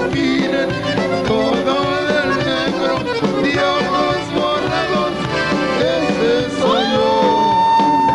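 Live Tejano band playing, with button accordion and a lead singer. Near the end a long high note slides up and is held.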